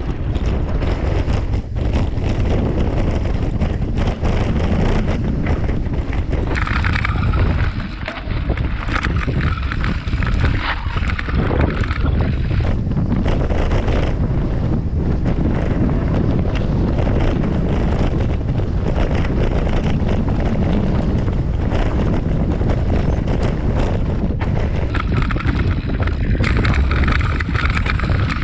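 Wind buffeting the microphone on a fast mountain-bike descent, with the tyres crunching over loose gravel and the bike clattering over bumps. A brighter hiss rises over it twice, about a quarter of the way in and again near the end.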